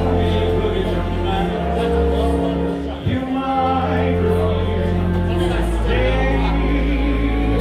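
Live band music with a man singing into a microphone over held bass notes.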